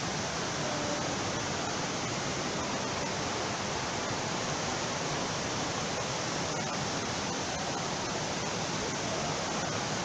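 Steady rush of a waterfall and a rocky stream pouring over lava rock.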